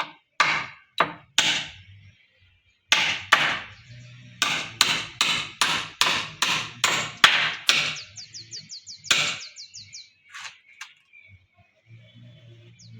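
Hammer driving nails into a wooden cage frame: a steady run of sharp blows, about two or three a second, with a short pause between two runs. Around two-thirds of the way through there is a brief burst of fast, high-pitched ticking.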